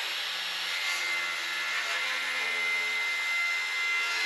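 Handheld circular saw cutting through a poplar siding board, running at a steady high whine.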